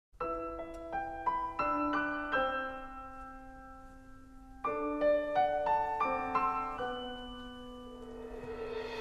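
Background music: a slow, gentle solo piano melody of single notes that ring and fade away. It starts out of silence, and a second phrase begins about halfway through.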